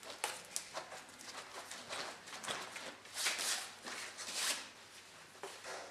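Hands working a bicycle tyre's bead over the wheel rim: rubber rubbing and scuffing against the rim with small irregular knocks, the two loudest scrapes about three and four and a half seconds in.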